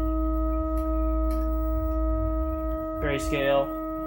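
Steady electronic test tone with overtones from the 1969 Zenith colour television receiving a pattern generator's signal, with a low hum beneath it that drops away about three seconds in as the test pattern changes.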